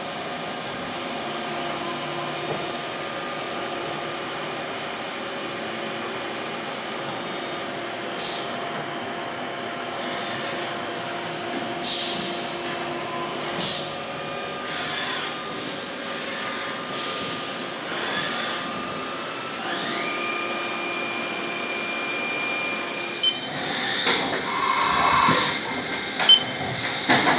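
Haas VF-2SS CNC vertical mill (12,000 rpm spindle) running behind its enclosure doors: a steady mechanical hum with a thin high whine. From about eight seconds in, short bursts of hiss come and go. Just after twenty seconds a whine rises in pitch and holds for a few seconds, and near the end the bursts come quickly one after another.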